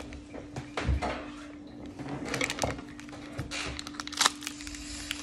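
Scissors cutting open a plastic clay pouch while it is handled: scattered crinkles and sharp snips, with a soft thump about a second in.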